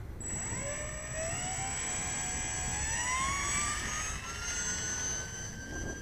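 Twin electric motors and propellers of an E-flite UMX Aero-Commander RC plane spooling up from rest, their whine rising in pitch over about four seconds and then holding steady at high throttle, as for a takeoff. Wind rumbles on the microphone underneath.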